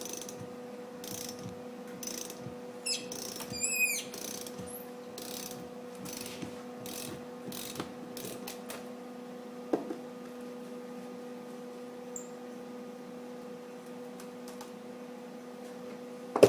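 Ratchet wrench working a welded-on nut to back a broken bolt out of a cast iron exhaust manifold: a series of ratcheting strokes with short squeaks from the seized bolt turning in its threads, then a few scattered clicks.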